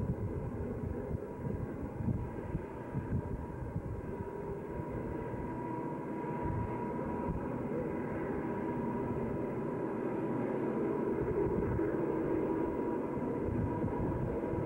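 Distant Southern Pacific diesel locomotives working hard up the grade: a steady low drone that grows a little louder in the second half, with wind buffeting the microphone.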